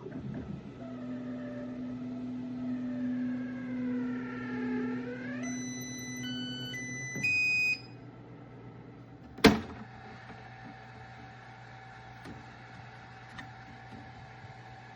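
3D printer's stepper motors running with a steady hum and whines that glide down and back up as the axes move. Then a short run of electronic beeps at several pitches, and a single sharp click about nine and a half seconds in, followed by a faint steady hum.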